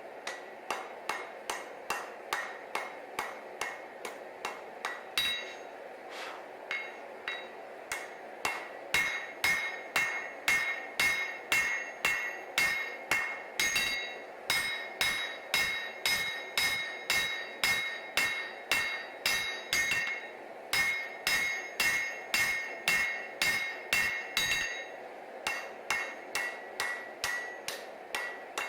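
Hammer strikes on hot damascus steel on an anvil, forging the blade's tip: a rapid run of ringing blows, about two to three a second, with a few short pauses between series.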